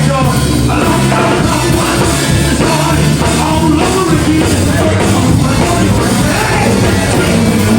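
Loud rock band music with singing and guitar.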